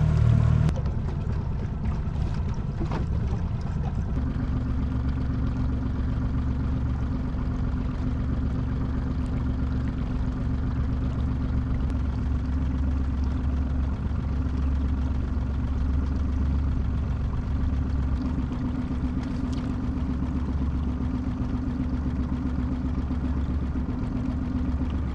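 Boat motor running steadily at low trolling speed, a low even drone, with a slightly higher steady hum joining about four seconds in.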